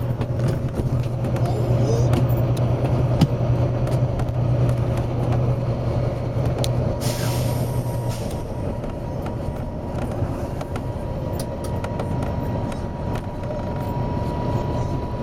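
Volvo B9TL double-deck bus's six-cylinder diesel engine running with a steady low drone, with a burst of compressed-air hiss lasting about a second from its pneumatic system around seven seconds in. The low drone drops away shortly after the hiss, with scattered clicks and rattles throughout.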